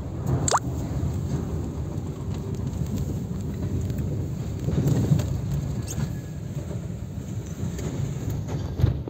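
Low rumble of a car moving slowly, heard from inside the cabin, with scattered light taps of rain on the car. A brief rising squeak sounds about half a second in.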